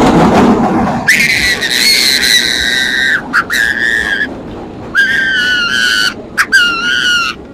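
New York City subway Q train pulling into the station: a low rumble, then the brakes and wheels squealing in long, steady, high-pitched tones that break off and start again about four times as the train slows.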